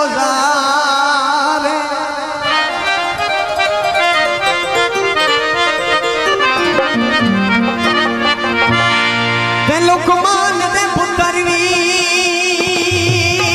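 Harmonium playing a Punjabi folk melody, with a run of notes stepping downward in the middle and low held notes joining in the second half.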